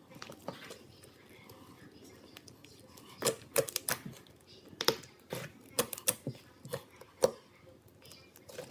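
Slime being squeezed and poked by hand, giving irregular sharp clicks and pops. They come more often from about three seconds in.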